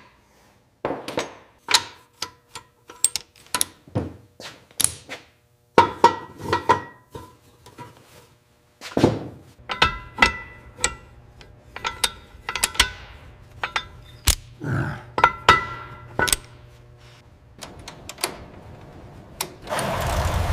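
Hand tools and metal parts clinking and knocking against a cast-iron flathead V8 engine block and its manifolds as the engine is assembled: an uneven run of sharp clanks and taps, some ringing briefly. About a second before the end a steady rushing noise comes in and grows loud.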